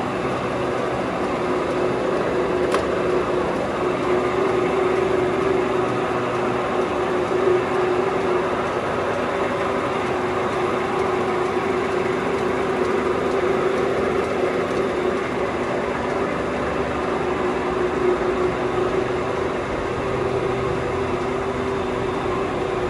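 Herbert 9C-30 combination turret lathe running: a steady mechanical whir with a constant hum, holding an even level throughout, with a faint click about three seconds in.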